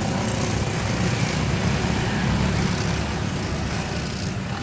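Steady low rumble of road traffic, with vehicle engines running.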